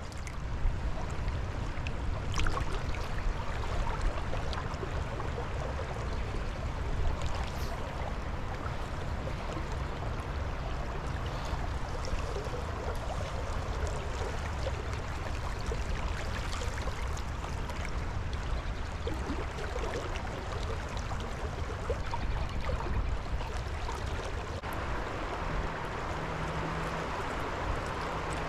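Creek water running steadily over the streambed, with a low rumble and a few brief clicks or knocks.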